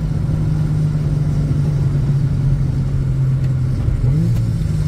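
Infiniti G37 sedan's V6 engine droning steadily on the move, then a quick blip of revs about four seconds in: a rev-matched gear change on the six-speed manual.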